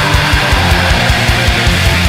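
Black metal recording: distorted electric guitars over very fast, even drumming, with the kick drum pounding roughly a dozen beats a second.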